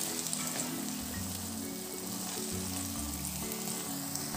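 Sweet coconut rice sizzling lightly in a nonstick pan as a spatula stirs and scrapes through it, with soft background music of held low notes.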